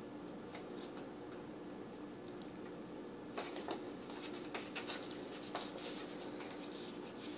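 Small water fountain's pump humming steadily under its water, with a string of light pats and splashes from about three seconds in as the kitten meddles with the water.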